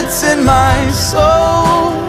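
Music: a song with a singer holding long, wavering notes over instrumental accompaniment.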